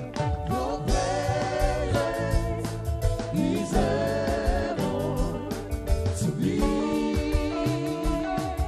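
Gospel worship music: a singer holds long, wavering notes over a band with steady drum beats.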